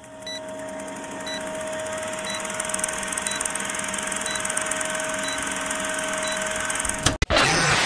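Film projector whirring, a countdown-leader sound effect, with a short faint beep about once a second. It cuts off with a sharp click about seven seconds in, and music starts.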